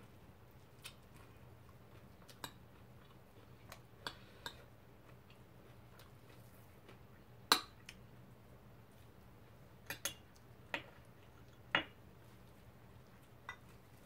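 Metal spoon clinking and scraping against a glass bowl as rice is scooped out: about ten short, scattered clinks, the loudest one about seven and a half seconds in, over a faint low hum.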